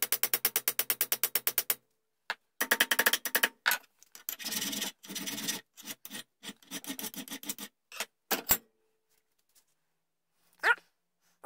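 Hand file scraping on a small brass piece clamped in a bench vise. A fast run of short, even strokes, about ten a second, stops about two seconds in. Several shorter groups of strokes follow, then the filing stops about two-thirds of the way through.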